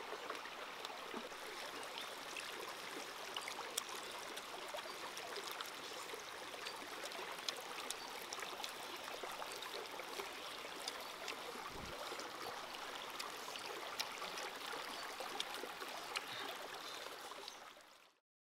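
Stream running over rocks, a steady rush of water, with small clicks now and then; it fades out near the end.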